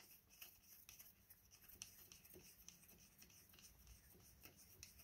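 Near silence, with a few faint small ticks as fingers screw a plastic cap onto a tyre valve.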